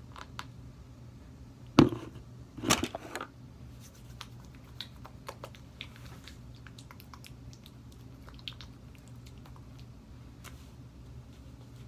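A plastic lotion bottle snaps with a sharp click about two seconds in, then lotion squirts out with a squish. After that come faint squishing and light taps as the lotion is rubbed between the hands.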